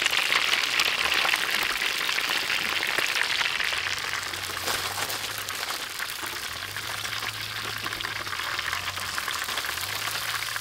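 Chicken legs deep-frying in hot oil in a wok: a steady, dense sizzle and crackle, loudest in the first few seconds and easing slightly after.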